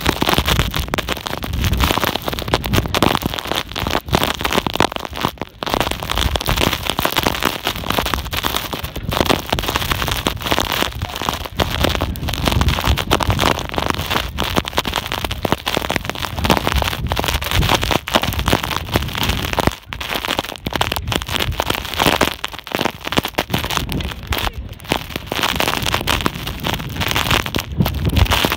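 Strong blizzard wind buffeting the microphone: a loud, continuous crackling rumble that surges and briefly drops out with the gusts.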